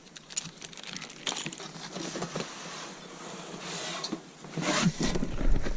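Rustling and scattered light clicks and knocks from packaging and metal parts being handled while unboxing, with a louder stretch of rustling and a low rumble near the end.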